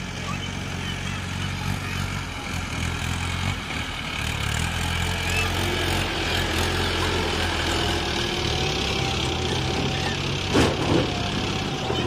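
Mahindra Arjun tractor's diesel engine running steadily as it drives, with two loud knocks near the end.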